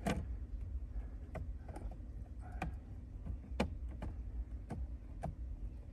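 Scattered light clicks and taps as a carbon fiber dash trim piece is set onto and handled against a truck's center console during a dry fit, over a low steady rumble.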